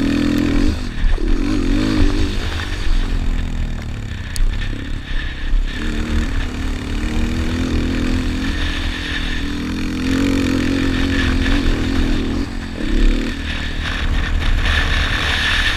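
Yamaha Raptor 250 quad's single-cylinder four-stroke engine under racing throttle, revving up and easing off again and again as it is ridden around a dirt motocross track.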